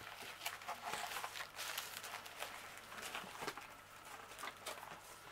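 Faint, scattered light clicks and taps of craft materials being handled on a table: tweezers and the kit's base plate and small mosaic pieces being picked up and set down.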